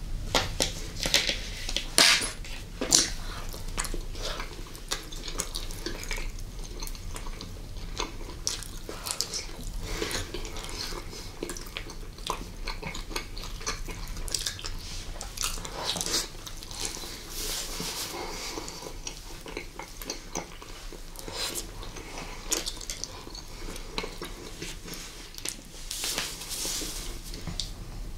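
Close-miked eating sounds of candy being bitten, chewed and sucked, with many irregular wet mouth clicks and crackles.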